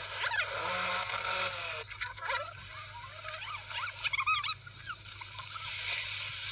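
Soundtrack of a Betacam tape played back on a Sony BVW-35 deck through the monitor's speaker: steady hiss and a low hum, with irregular short chirping squeaks clustered in the middle.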